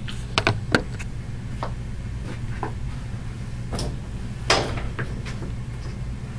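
A handful of short knocks and clicks, the sharpest about half a second in and near four and a half seconds, over a steady low hum.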